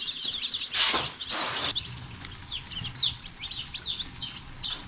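A brood of Cornish Cross and Rhode Island Red chicks peeping continuously in short, high chirps. Two brief rustles come about a second in.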